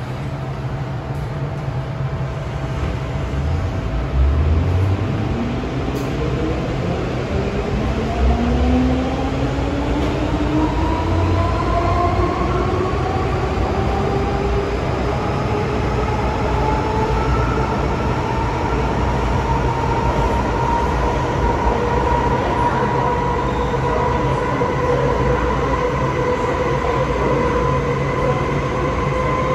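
MTR M-train electric multiple unit pulling away at full power, heard from inside the car. Its traction motors give the strong howl that railfans call 鬼叫 ("ghost howl"): several whining tones rise steadily in pitch as the train gathers speed, then hold near the end, over the rumble of wheels on rails with a few low thumps.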